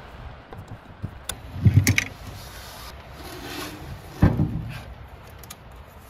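Handling noises from fitting a replacement igniter inside a gas furnace: a screwdriver and hands clicking, rubbing and knocking against the sheet-metal burner compartment. There is a cluster of sharp knocks about two seconds in and one louder knock a little after four seconds.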